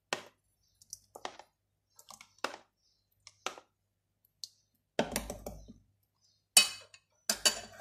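A spoon scraping and tapping against a plastic tub while yogurt is scooped out into a plastic mixing bowl: a scatter of short clicks and taps, louder and closer together in the last few seconds.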